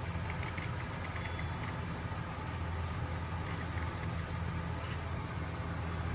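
Steady low background rumble, like a motor or distant traffic, with a few faint light clicks in the first couple of seconds.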